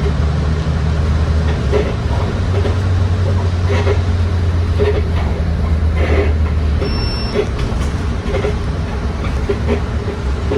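Inside a moving bus: the diesel engine's steady low drone, with creaks and rattles from the bus body coming again and again. A short high electronic beep sounds about seven seconds in.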